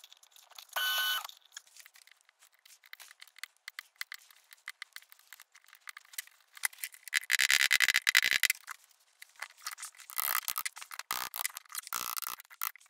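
Metal scraping and rasping against wood as a screwdriver shaft is worked into a hole in a wooden handle blank. There are faint clicks, one long scrape about seven to eight and a half seconds in, and a run of shorter scrapes from about ten seconds.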